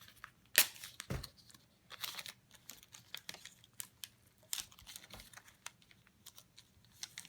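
Blue tape being torn and pressed into place, scattered crinkling crackles and sharp clicks, the loudest a little over half a second in.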